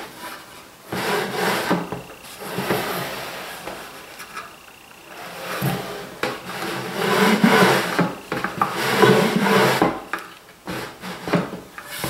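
Wooden sliding box lid being pushed back and forth in its grooves: wood rubbing on wood in a series of slides that swell and fade, louder in the second half. It is a dry-fit test of how the lid slides, whose sides bind at tight spots.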